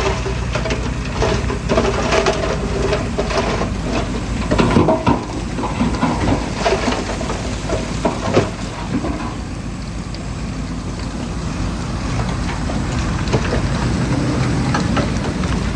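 Diesel engine of heavy earthmoving machinery running with a steady low rumble, with crunching and cracking of dirt and stone, busiest in the first half.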